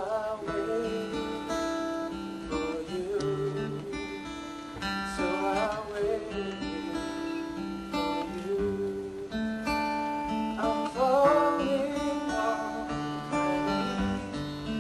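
Slow acoustic guitar music: strummed chords held and changed every second or so, with a wavering melody line above them.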